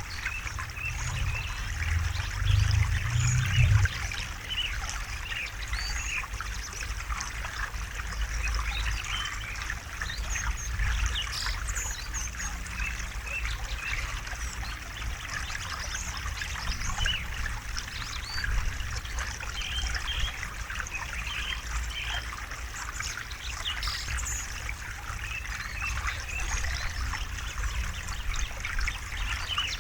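River water trickling and burbling steadily, with a low rumble that swells briefly in the first few seconds.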